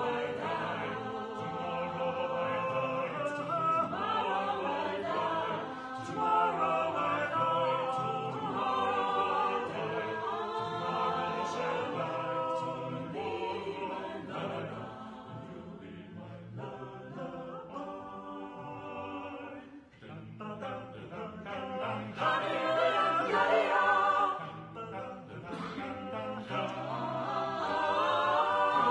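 Mixed chamber choir of about eleven voices, women and men, singing a cappella in harmony. The sound thins and grows quiet about two-thirds of the way through, then swells loud again.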